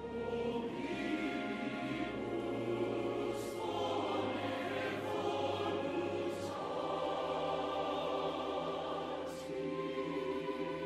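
Mixed SATB choir singing the Latin words 'et in terra pax hominibus bonae voluntatis' softly, in sustained chords over orchestral accompaniment, with a few hissing 's' sounds from the consonants.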